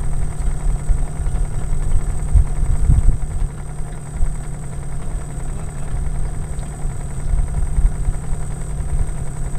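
Small petrol boat engine idling with a steady low rumble.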